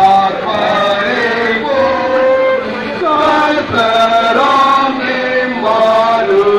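A group of voices singing a hymn together, with slow notes held and moving step by step.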